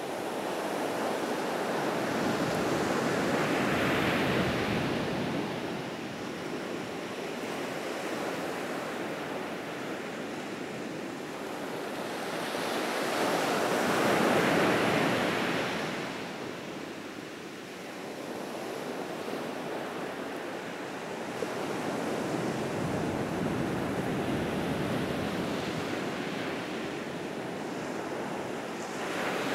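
Ocean surf breaking and washing in, a continuous rushing noise that swells with each breaking wave, loudest about four seconds in and again around fourteen seconds.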